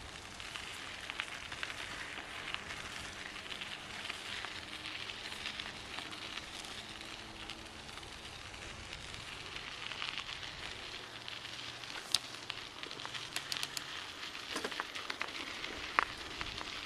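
Bicycle tyres rolling over a bumpy dirt-and-gravel trail: a steady crackling crunch with scattered small clicks and rattles, and a few sharper knocks about twelve seconds and sixteen seconds in.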